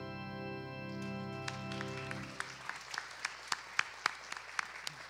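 A held final chord of instrumental music, pulsing slowly, cuts off a little over two seconds in. The congregation then breaks into scattered, sparse applause of separate sharp claps.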